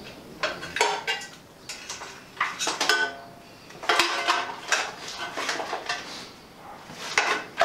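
Metal parts and wiring connectors clinking and rattling on a motorcycle frame as they are handled, in several short bursts with brief pauses between.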